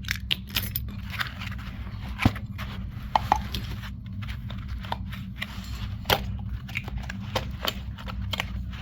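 Door lock hardware and its packaging being handled: scattered clicks, knocks and rustles, with louder knocks about two seconds in and about six seconds in, over a steady low hum.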